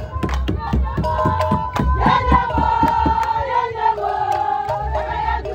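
Voices singing and wailing in long held notes over a quick, steady drum beat of about four strokes a second, with a crowd of voices behind; one voice slides down in pitch midway.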